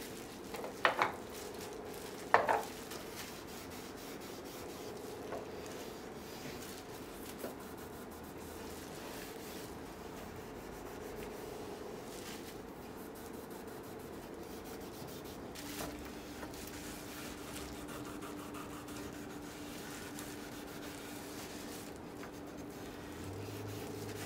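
Gloved hands rubbing oil finish into walnut and white oak tray surfaces: a soft, steady rubbing. Two sharp snaps about one and two and a half seconds in, as the gloves are pulled on.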